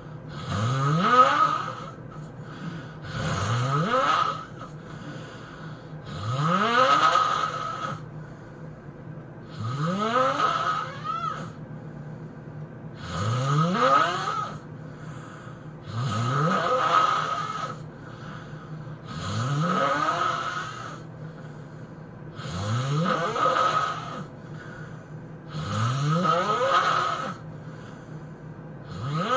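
A person snoring heavily, about ten loud snores evenly spaced roughly three seconds apart, each rising in pitch as it goes.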